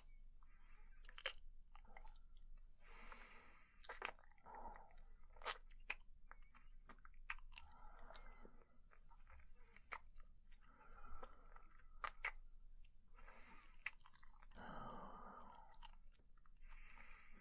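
Faint close-miked kissing: wet lip smacks and mouth clicks between slow, soft breaths.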